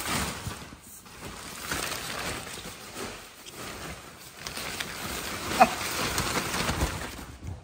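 Monkeys scrambling through play tunnels: steady rustling with many small knocks and scrapes, and one short high squeak about five and a half seconds in.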